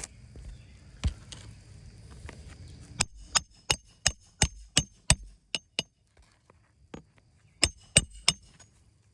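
Hammer-like strikes during a repair: a single knock about a second in, then a quick run of about nine sharp blows, and three more near the end, each with a faint high ring.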